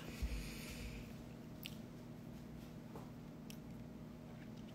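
Quiet small-room tone with a steady low hum and a few faint, short clicks.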